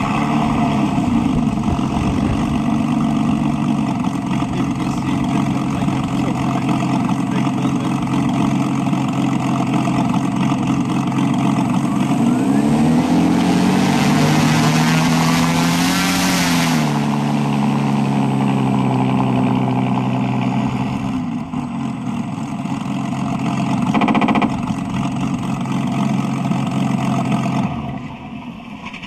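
Onboard sound generator of an electric scale RC Spitfire playing a Rolls-Royce Merlin engine sound through its speaker while the propeller turns. The note swells in a rev about halfway through and settles back, a short loud burst comes near the end, and the sound stops just before the end.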